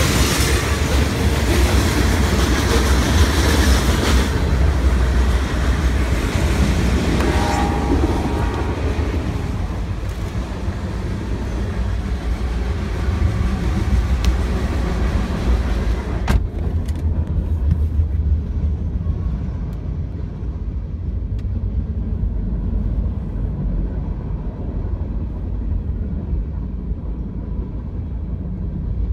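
Freight train of loaded hopper cars and tank cars rolling past: a steady heavy rumble of steel wheels on rail with clattering. About halfway through the sound turns muffled, heard from inside a car cabin, with only the low rumble coming through.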